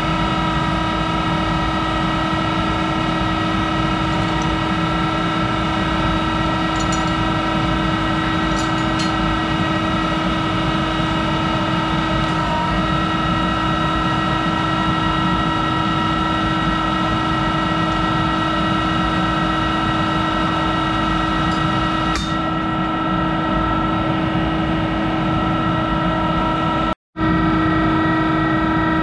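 Monarch 10EE lathe running: a steady mechanical hum with a whine of several fixed tones, broken by a brief dropout near the end.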